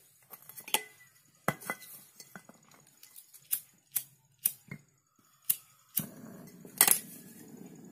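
Sharp metallic clinks and taps of pliers working on refrigerator copper tubing, about a dozen separate strikes. About six seconds in, a steady hiss starts and keeps going.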